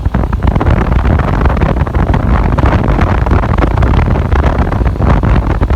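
Wind buffeting the microphone of a moving motorcycle, a loud, steady low rumble mixed with road and engine noise.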